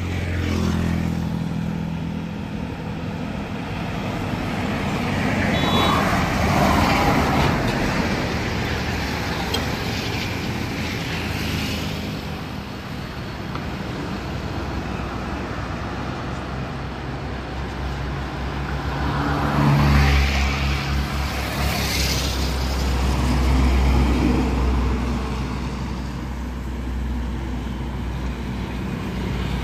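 Highway traffic passing close by: heavy trucks and motorcycles, their engines rising and fading as each vehicle goes past, with a deep rumble loudest about two-thirds of the way through.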